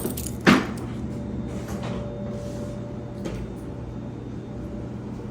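A single sharp knock about half a second in, over a steady low hum.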